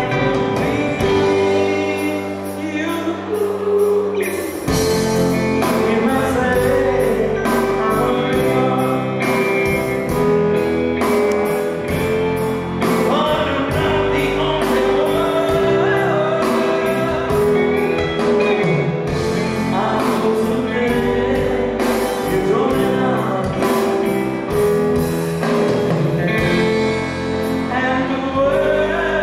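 Live band performance: a male lead vocalist sings held, sustained lines over electric guitar and drums.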